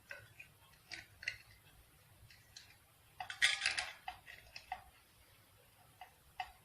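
Light clicks and knocks of small metal fittings being handled, with a short clattering run about three seconds in.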